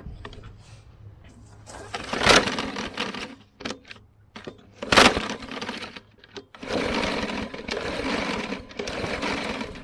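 Briggs & Stratton 125cc lawnmower engine being pull-started: two hard pulls of the recoil starter, then a longer stretch of rough mechanical rattling from about seven seconds in, without the engine settling into a steady run.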